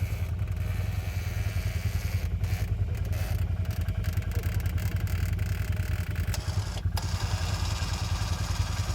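An ATV engine running steadily at low revs, with a rapid, even pulsing.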